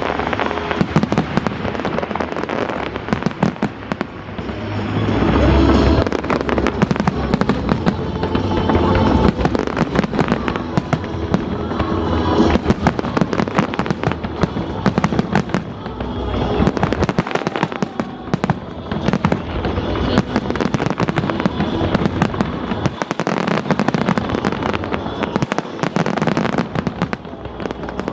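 Aerial fireworks going off in rapid succession, dense crackling and popping with heavier bangs mixed in, over music played with the show.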